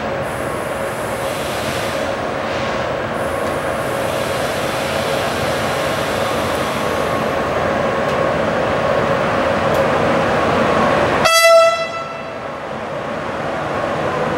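A train running through with steady rail noise that slowly builds, and one short, high horn blast about three-quarters of the way through.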